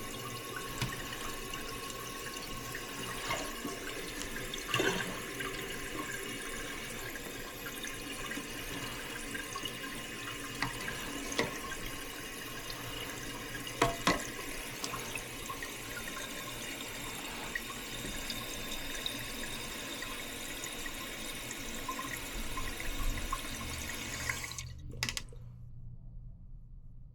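Water running steadily into a toilet, with a hiss and a few small knocks: the tank refilling. The hiss stops abruptly shortly before the end.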